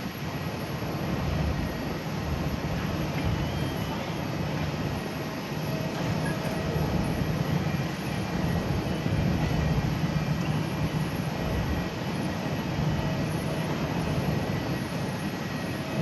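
Airbus A350-900 jet airliner taxiing, its Rolls-Royce Trent XWB engines running at low taxi power: a steady deep rumble with hiss over it and a faint high whine.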